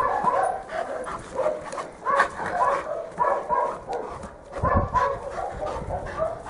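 Dogs barking in a rapid, continuous run of short barks, several a second, with a dull thump about two-thirds of the way through.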